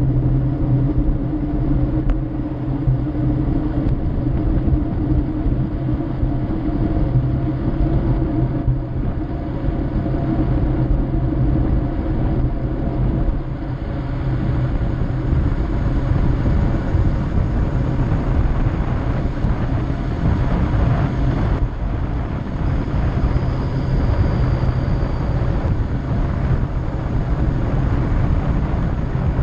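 Wind roaring over the microphone of a bike-mounted camera on a fast road-bike descent, with tyre rumble on asphalt. A steady low hum fades out over the first ten seconds.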